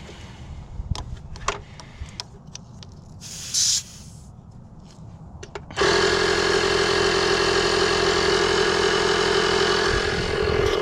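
A short hiss of air about three and a half seconds in, then an air compressor switches on suddenly about six seconds in and runs with a steady hum, airing up the freshly plugged tire.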